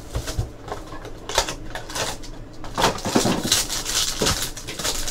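Crinkling plastic wrapper and clicking handling noise as a sealed trading-card pack is pulled from its box and torn open, with the rustle loudest in the second half.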